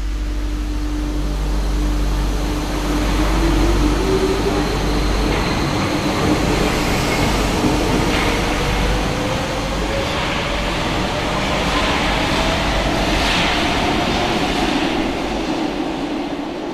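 RATP MF77 metro train pulling out of the station and accelerating, its motor whine rising slowly and steadily in pitch over a steady hum and the rumble of the running train. The sound fades as the train leaves, near the end.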